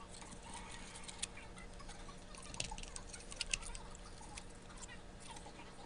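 Scattered light clicks and taps of small hard objects, most of them bunched near the middle, over a faint steady hum.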